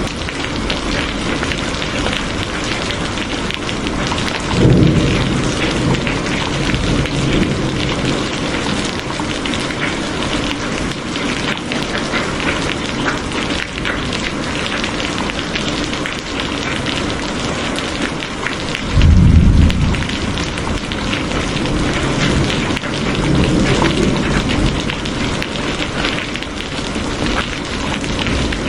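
Steady, dense rainfall hissing throughout, with low rumbles of thunder rolling in a few times; the loudest rumble comes about two-thirds of the way through.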